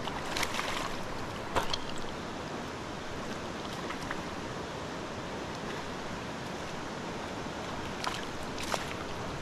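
Steady rush of a flowing trout stream, with a few short splashes at the water's surface: a couple in the first two seconds and two more near the end.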